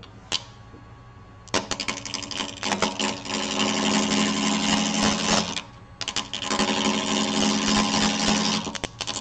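Wood lathe gouge cutting into a spinning bark-on log blank for a natural-edge bowl: an interrupted cut with a fast, even rattling rhythm as the uneven blank strikes the tool each turn. The cut starts about a second and a half in, stops briefly past the middle and starts again, over the low hum of the running lathe.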